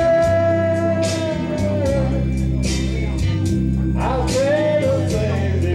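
A man singing into a microphone over a recorded country backing track with guitar, bass and drums: a long held note that falls away about a second and a half in, then a new sung phrase about four seconds in.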